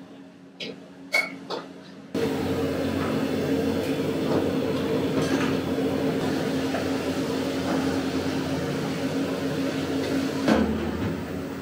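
A few light metal clicks of a spoon on a steel bowl, then a steady kitchen hum and hiss while a ladle stirs curry in a wok over a lit gas burner, with one sharp clank of metal about ten and a half seconds in.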